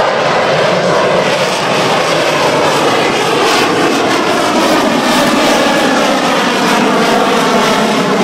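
USAF Thunderbirds F-16 fighter jet flying overhead, its single jet engine loud and steady, with a slowly shifting pitch as it passes.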